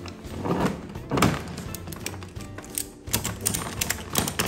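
Metal ratchet buckle on a polymer strap being worked to tighten it, its pawl clicking: a few clicks early on, then a quick run of clicks near the end. Background music plays underneath.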